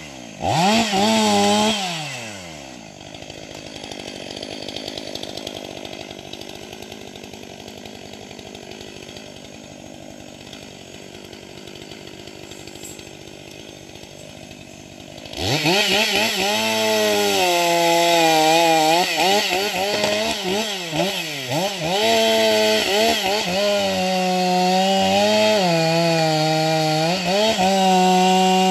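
Stihl MS 500i fuel-injected two-stroke chainsaw revving briefly, then dropping to a low idle for about twelve seconds. About halfway through it goes to full throttle and cuts through a log, its pitch sagging and recovering again and again as the chain bites into the wood.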